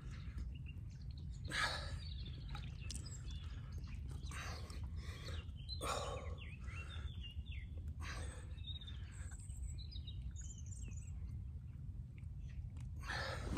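Birds chirping in the background over a steady low rumble, with a few short noisy bursts spread through the first two-thirds.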